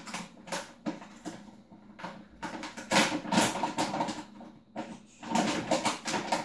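A resealable plastic pouch of whey protein powder being handled and opened, crinkling and rustling in irregular bursts, the loudest about three seconds in and again near the end.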